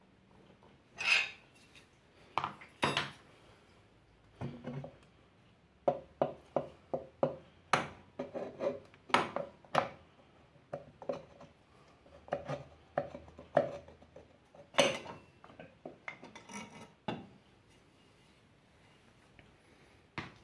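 Irregular metal clinks, knocks and scrapes as the aluminium clutch cover of a Yamaha YBR 125 engine is worked loose and lifted off by hand. They stop about three seconds before the end.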